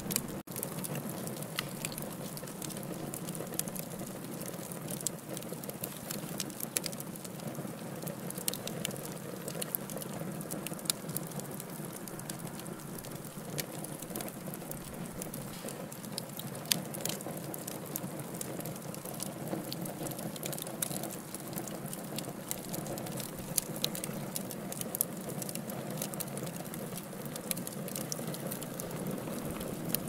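Wood fire in a fireplace crackling, with scattered sharp pops over a steady low rush of flame. The sound cuts out for an instant just after the start.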